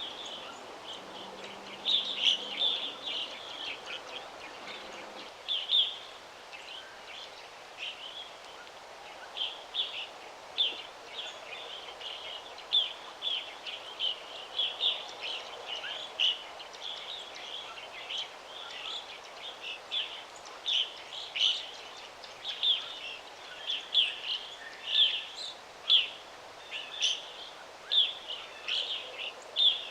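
Songbirds chirping: a steady stream of short, high chirps, some in quick runs, over a soft steady background hiss.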